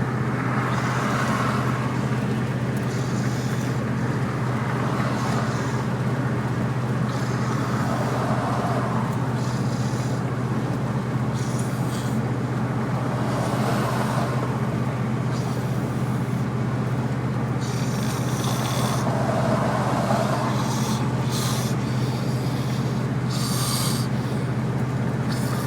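A sleeping man snoring heavily, with harsh sucking snores every couple of seconds at an uneven pace, over a steady low hum of the car around him.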